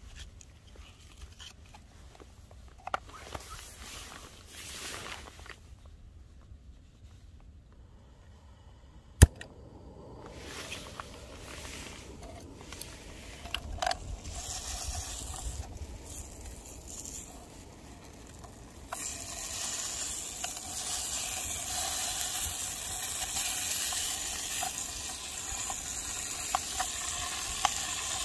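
Pastrami beef and a rice ball starting to sizzle in a camping pot on a gas stove, the sizzle setting in about two-thirds of the way through and holding steady. Before that it is quiet apart from a few small clicks and one sharp click about nine seconds in.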